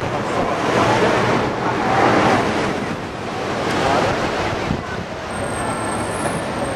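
Wind buffeting the microphone on the open top deck of a moving sightseeing bus, a rushing noise that rises and falls in gusts every second or two.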